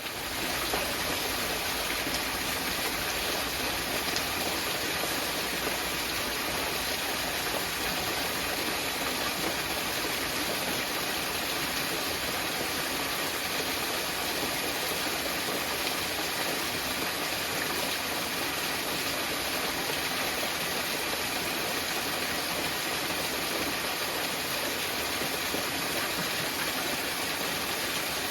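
Small mountain waterfall: a steady, even rush of falling and splashing water, fading in at the start.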